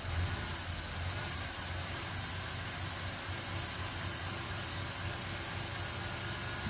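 2000 Ford F-150's 4.2-litre V6 idling, with a steady hiss of air being sucked in through a split vacuum elbow on the PCV valve hose: a vacuum leak, the cause of the poor idle.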